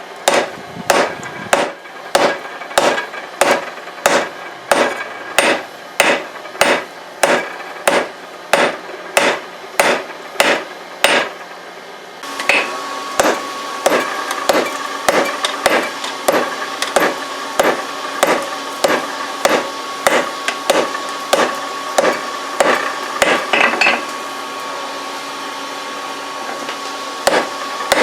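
Hand hammer striking hot leaf-spring steel on an anvil in a steady rhythm of about two blows a second, drawing the steel out lengthwise. About twelve seconds in, a steady hum joins in the background. The blows come closer together, then pause for a few seconds before resuming near the end.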